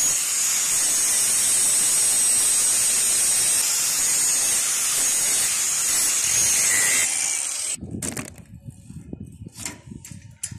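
Angle grinder's abrasive disc grinding a steel threaded rod: a steady, high hissing whir that cuts off suddenly about three-quarters of the way through, followed by a few light knocks and clinks.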